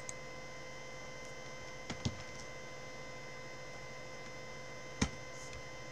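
A few sharp clicks at a computer: one right at the start, a quick pair about two seconds in and a louder one about five seconds in, over a steady electrical hum.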